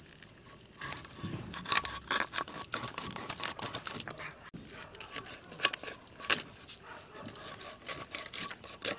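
A metal blade scraping the scales off a whole bhetki (Asian sea bass): a quick, irregular run of sharp scraping strokes and clicks, loudest in a few strokes about two and six seconds in.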